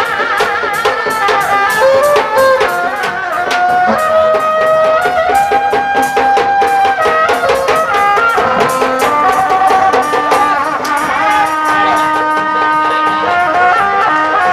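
Traditional Sundanese music: a wind instrument plays a melody of held, wavering notes over quick, steady drum strokes.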